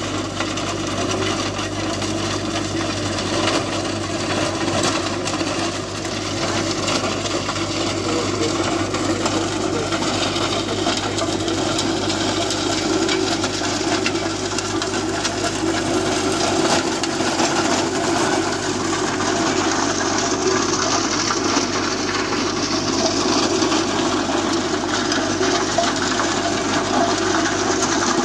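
Captain 8G compact tractor's engine running steadily under load, driving a rear-mounted rotavator whose spinning blades churn soil and straw.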